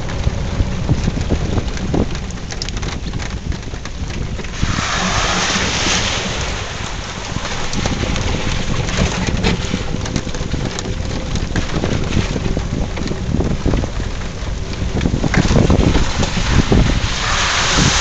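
Honda ATV engine running with wind buffeting the microphone, and a rushing hiss of water about five seconds in and again near the end as the tyres churn through floodwater.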